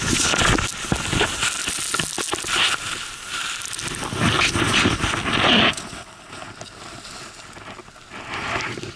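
Skis turning through deep powder snow, with snow spray hitting the helmet camera in crackling, crunching noise and knocks. It drops to a quieter hiss about six seconds in.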